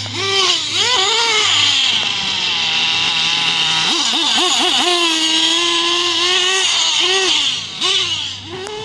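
Losi 8ight-T 3.0 nitro RC truggy's engine revving in repeated throttle blips, the pitch rising and falling again and again, held steady for a couple of seconds past the middle, then easing off near the end.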